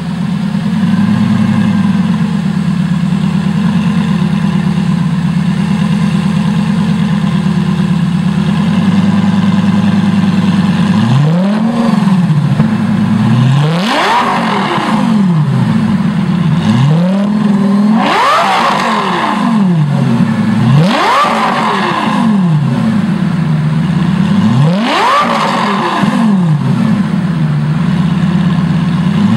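A car's engine exhaust idling with a steady note, then revved repeatedly from about a third of the way in. Each of about five revs climbs sharply in pitch and falls back to idle.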